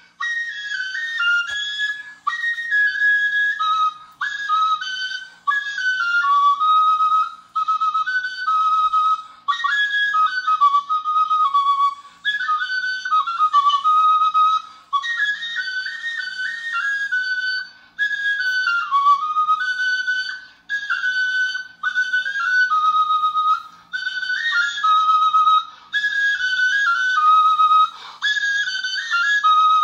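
Background music: a high, whistle-like melody played in short phrases of a second or two, with brief gaps between them.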